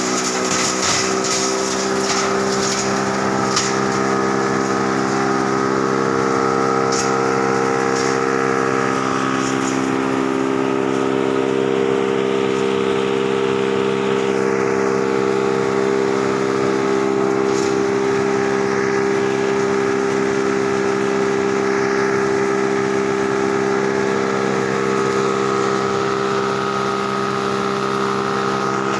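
Heavy-duty wood chipper running steadily with a deep, even machine hum, and a few sharp knocks in the first seconds and twice more later.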